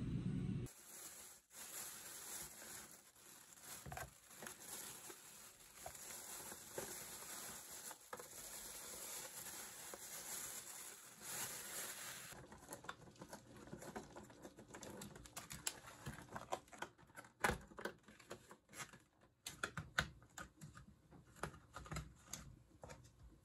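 Thin plastic food packaging being handled and opened: the wrap and clear lid of a plastic sushi tray crinkle, and a plastic container lid is pried at, giving dense irregular clicks and crackles in the second half. Before that there is a low steady hiss with a few soft taps.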